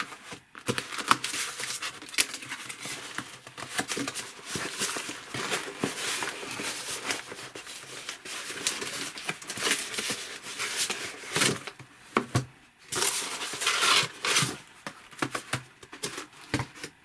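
Packaging being handled and opened: plastic and cardboard crinkling and rustling, with many short clicks and knocks.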